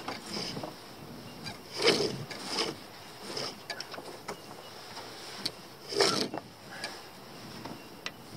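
Lines and deck gear being worked by hand on a small sailing yacht: two louder rubbing pulls about two and six seconds in, with scattered short clicks.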